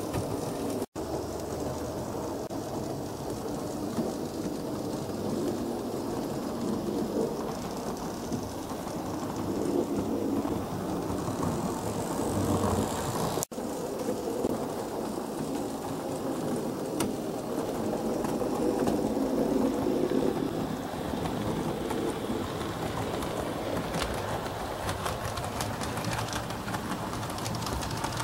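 H0 model trains running on the layout: a steady rolling rumble of wheels and motors on the track. The sound cuts out for an instant about a second in and again about halfway through.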